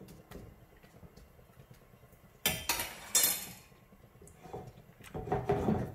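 Metal spoon scraping and clinking in a frying pan of potatoes in sauce, with two sharp clatters about two and a half and three seconds in as the spoon is set down on the stone counter, and a few lighter knocks near the end.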